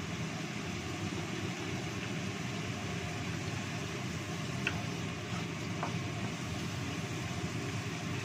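Wooden spatula stirring spice paste in a nonstick wok, with a couple of light clicks against the pan about halfway through, over a steady low rushing noise.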